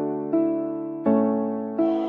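Background music: keyboard chords in the manner of an electric piano, a new chord struck about every three-quarters of a second, each ringing and fading until the next.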